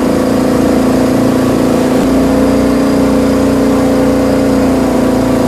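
Boat engine running at a steady speed, a loud, even drone.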